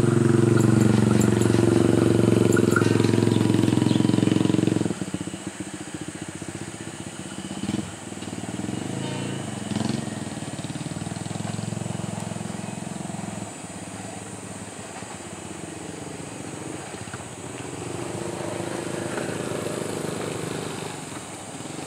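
A vehicle passing close by, its engine or motor note sliding steadily down in pitch, loud for about five seconds and then cut off abruptly. Quieter outdoor background follows.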